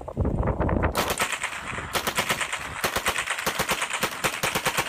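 MP40 submachine gun firing 9 mm rounds on full auto in long bursts of rapid, evenly spaced shots, with a brief break about two seconds in.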